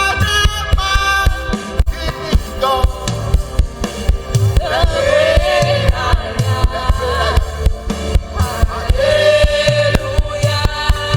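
Live gospel worship music: sung voices holding long notes over a band with a steady drum beat.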